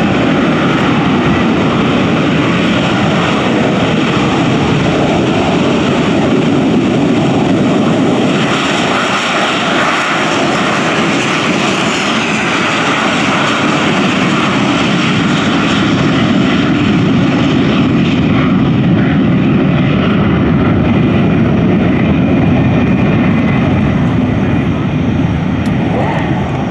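AV-8B Harrier II's Rolls-Royce Pegasus turbofan running loud and steady: a continuous jet roar with a high whine over it.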